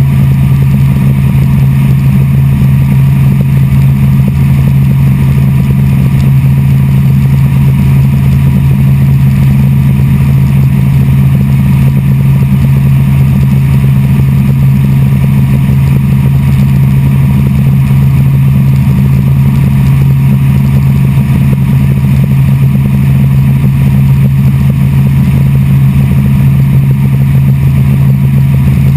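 Helicopter engine and rotor noise heard from inside the cabin in level cruise flight: a loud, steady, low drone that does not change.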